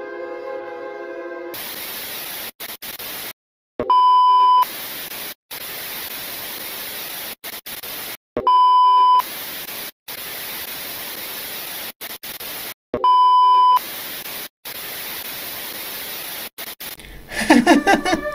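Old television static hissing, cutting out for an instant again and again. Three loud beeps at one steady pitch, each under a second long, come about four and a half seconds apart.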